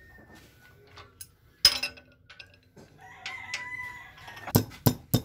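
A single sharp metallic clank as an alternator is worked on in a vise, then, near the end, a quick run of sharp metal taps, about four a second. In between, a rooster crows once in the background.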